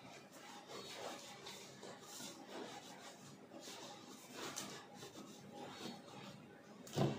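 Repeated rubbing strokes over the leather of a Red Wing 2245 work boot, wiping on leather deglazer, about two strokes a second, with a single knock near the end.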